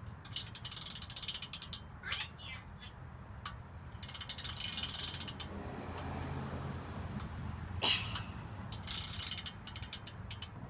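Ratcheting wrench clicking in quick runs as a bolt holding a caster to the crane's steel base is tightened: three main runs of rapid clicks, each a second or so long, with a single knock about eight seconds in.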